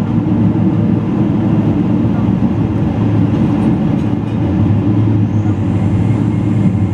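General Electric GE90-115B turbofans at idle, heard inside the cabin of a taxiing Boeing 777-200LR as a steady low rumble and hum. A faint high whine rises about five seconds in.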